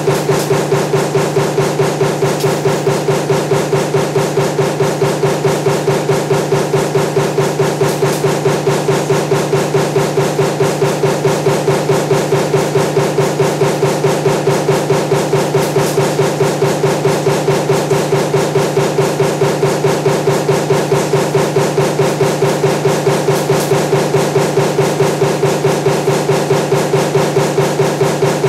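Power press running a die that stamps table fan motor parts, striking in a fast, even rhythm of about three to four strokes a second over a steady machine hum.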